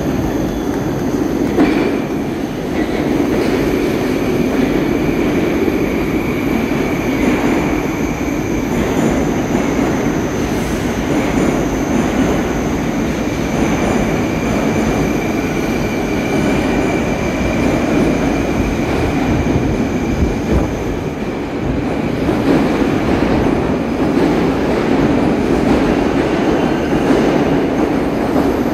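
Moscow metro train pulling out of the station along the platform, a steady rumble of wheels on rails as it gathers speed, with a high steady whine over the first half.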